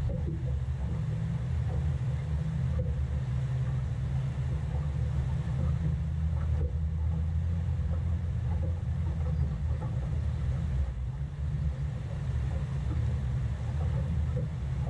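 Steady low rumble of wind buffeting the microphone over water moving past a small boat in river current, with a few faint ticks.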